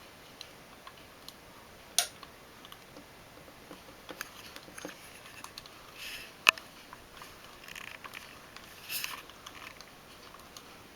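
Lubitel 2 camera being wound on by hand: scattered small clicks and short rasps as the film advance knob is turned, with one sharp click about six and a half seconds in the loudest.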